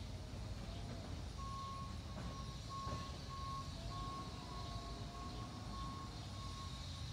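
A garbage truck's backup alarm beeping from about a second and a half in, about two beeps a second, over the low, steady running of the 2009 Autocar ACX / Heil Odyssey CNG truck's engine.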